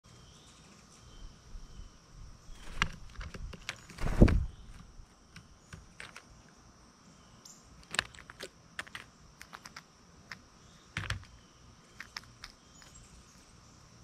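Blue jay landing on a tray of in-shell peanuts and picking through them: a heavy thump about four seconds in, then scattered sharp clicks and knocks of peanut shells and claws against the tray.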